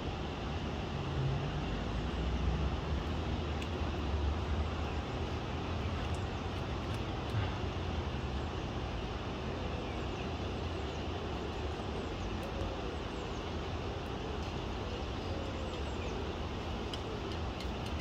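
Steady low rumble of distant city road traffic.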